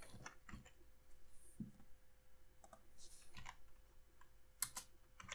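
Faint, scattered clicks of computer keyboard keys being typed, with one louder click near the end.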